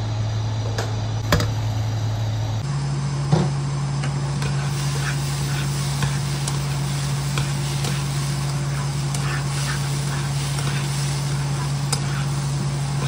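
A metal spatula stirring and scraping rice in a nonstick kadai, with many short scrapes and clicks and a sharper knock about three seconds in, over quiet sizzling. Under it runs a steady low hum that steps up slightly in pitch a couple of seconds in.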